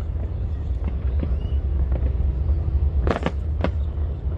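Fireworks going off: a few faint pops, then two sharp bangs about half a second apart a little after three seconds in, over a steady low rumble.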